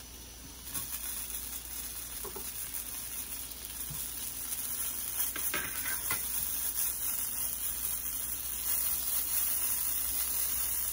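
Thin flatbread dough frying in a flat pan, a steady high-pitched sizzle that sets in about a second in and slowly grows louder as the bread browns.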